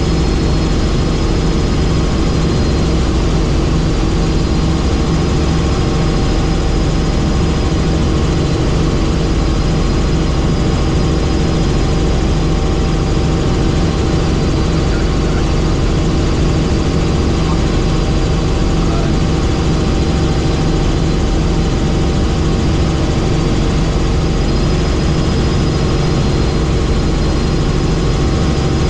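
Helicopter in flight: loud, steady engine and rotor noise with a low, even pulsing.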